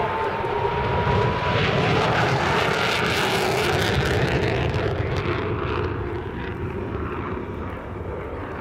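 F-22 Raptor's twin Pratt & Whitney F119 turbofan engines at high power, a loud jet roar that peaks about three seconds in and then eases slightly.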